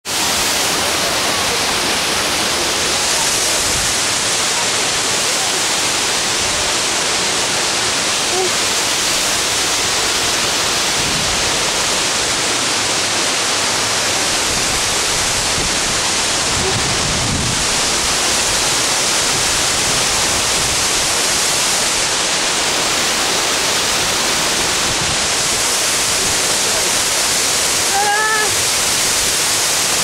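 Cusarare Waterfall and its stream running over boulders, a steady, dense rush of water without a break. Near the end comes one short voice.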